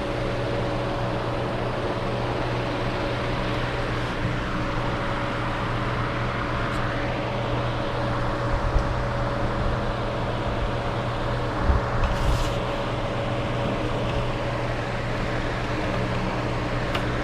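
Steady mechanical hum of a running machine, with a constant low drone and a fainter higher tone, like a fan or heater unit. A few light knocks and handling sounds come about two-thirds of the way in.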